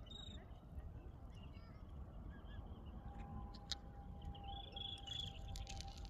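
Small birds chirping in short, scattered notes, with a quick flurry of chirps near the end, over a steady low outdoor rumble.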